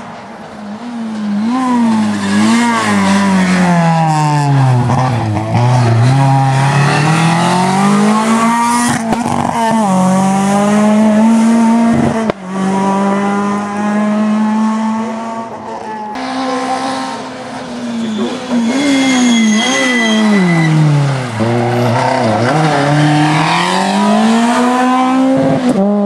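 Rally car engines run hard up a twisty stage, the pitch climbing through the gears, dropping sharply as the drivers lift and brake for the hairpins, then climbing again, over and over.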